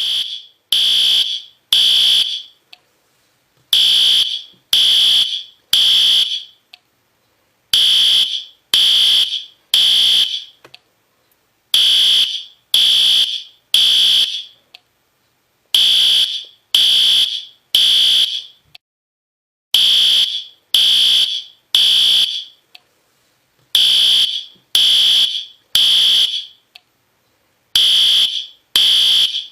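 System Sensor P2R fire alarm horn strobe sounding the temporal-3 evacuation pattern: three loud, high-pitched half-second beeps about a second apart, then a pause, repeating every four seconds.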